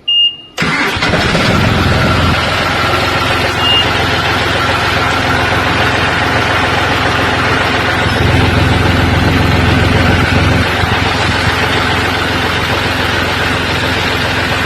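Tractor diesel engines running loud and steady, with the low rumble swelling twice.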